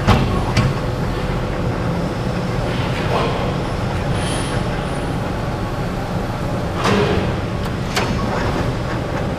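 Metal lathe running steadily while cutting a tapered 3/4 NPT external thread. A few sharp metallic clicks stand out, the loudest right at the start and another pair about a second apart near the end.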